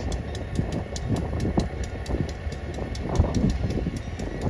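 Amtrak passenger train moving slowly on a switching move, a steady low rumble with scattered knocks from the equipment.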